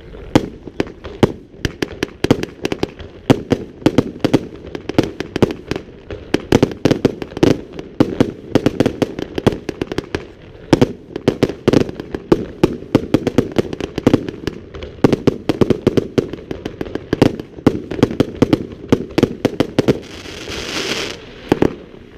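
Fireworks display: a rapid, continuous barrage of sharp bangs, several a second, as shells burst. Near the end comes a hissing crackle.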